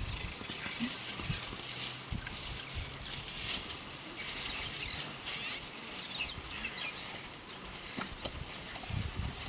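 African elephant walking through dry grass: soft footfalls and faint rustling, with a low steady hum for a few seconds near the start.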